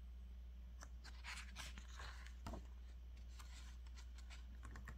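Faint rustle of a picture-book page being turned by hand, with a soft tap about two and a half seconds in, over a low steady hum.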